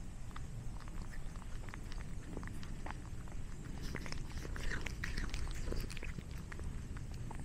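Orange tabby cat chewing a snack: a run of small sharp mouth clicks, thickest around the middle.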